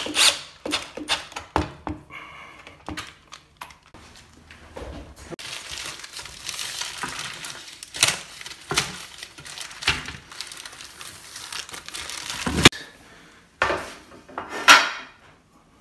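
Plastic packaging crinkling and rustling while metal furniture brackets and rails are unpacked and handled, with scattered clinks and knocks of metal parts. There is a sharp knock about three seconds before the end and a louder clatter near the end.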